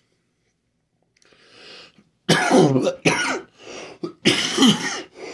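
A man coughs: a breath about a second in, then a fit of several loud coughs in quick succession from a little past two seconds. The coughing comes from a lingering cold in his throat, made worse by smoking a cigar.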